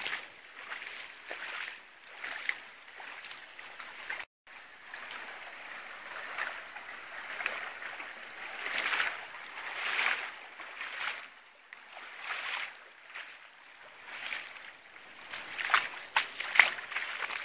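Footsteps wading through shallow floodwater, splashing and sloshing in irregular bursts.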